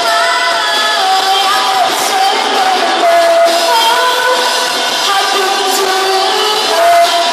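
A live rock band plays a cover, with a female singer holding sung notes over electric guitars, bass guitar and drums.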